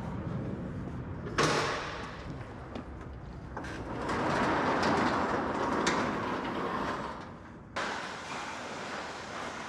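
A large commercial overhead door moving on its tracks. It runs with a sustained sliding noise that swells in the middle, after a sudden loud noise about a second and a half in, and cuts off abruptly near the end.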